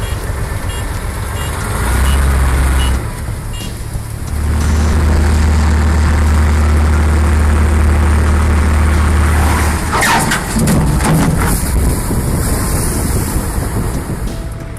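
Heavy diesel vehicle engine running under load, with a deep steady drone. The drone starts about two seconds in, dips briefly near four seconds, then holds until about ten seconds.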